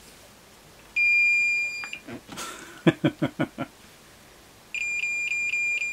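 Fluke 117 multimeter's beeper sounding one high steady beep for about a second, then, after a quick run of about six short knocks, beeping again in a pulsing chirp near the end. The beeping is its VoltAlert non-contact voltage detector picking up mains voltage from the overhead lighting.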